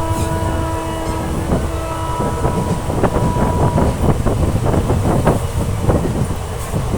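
Passenger train running, heard from on board over a constant low rumble. A steady pitched tone sounds for the first couple of seconds, then the wheels clatter and rattle irregularly over the track.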